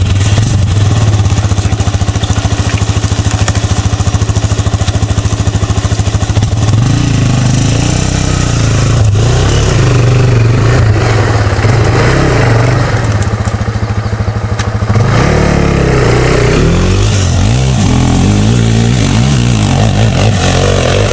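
Sport quad's engine running loudly close by, then revving and climbing a steep hill, its note rising and falling with the throttle from about six seconds in.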